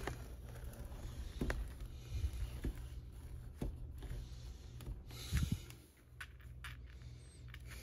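Faint, scattered snaps of diamond-painting drills clicking into place as the finished canvas is pressed down, about one small click a second. A soft bump comes about five seconds in. It is not a loud snap, but it's a snap.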